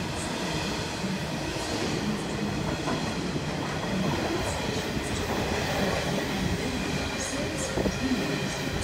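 Coal train's hopper wagons rolling steadily past at close range, a continuous rumble of wheels on rail with faint high-pitched wheel squeal.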